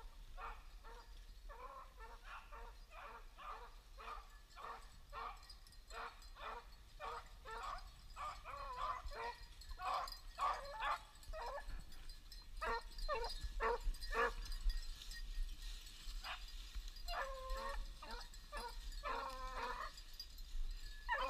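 A pack of beagles baying while running a rabbit's scent trail: quick repeated yelping bays, about two a second, then a short lull and a few longer, drawn-out bays near the end.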